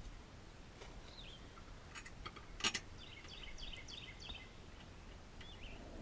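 A few light clicks and taps as a new mower blade is worked onto the spindle under a Husqvarna garden tractor's deck, lining up its star-shaped hole, the sharpest about two and a half seconds in. A bird chirps a quick run of notes just after.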